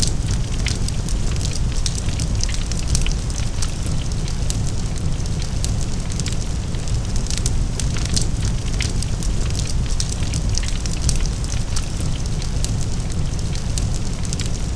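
Large fire burning: a steady low rumble with dense, irregular crackling and popping throughout.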